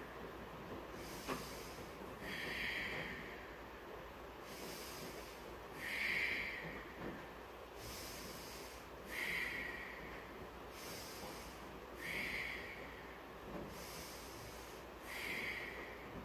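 A woman breathing hard in rhythm with repeated leg lifts: a strong exhale about every three seconds with a softer inhale between. A brief click about a second in.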